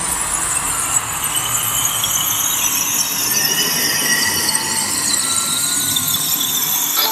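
Electronic intro soundtrack: a long synthesized sweep that slides slowly down in pitch over a hissing noise bed, with thin gliding tones in it. The sweep cuts off suddenly near the end.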